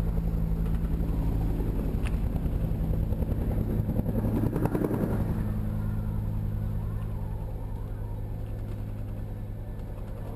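An engine running steadily with a fast, even pulse, gradually getting quieter in the second half.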